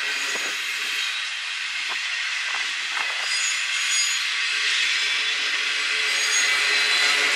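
Double-stack container train rolling past: the steady noise of steel wheels on rail, with a few sharp clacks and thin high wheel squeals now and then.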